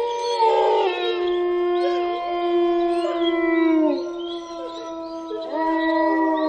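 Long, drawn-out howling wails from a horror sound effect, several pitched tones layered and held. The wail slides down and fades around four seconds in, and a new one swells up near the end.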